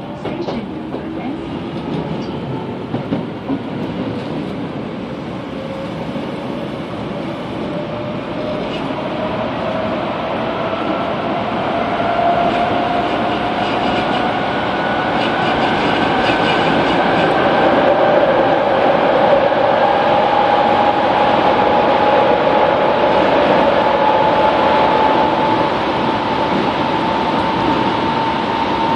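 Kobe City Subway 3000 series train running, its Hitachi GTO inverter and traction motors whining in two tones that rise slowly and steadily in pitch as it gathers speed, growing louder. A few wheel clicks about three seconds in.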